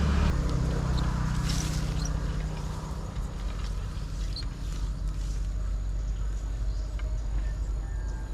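A steady low motor hum, with a few faint short chirps and clicks over it.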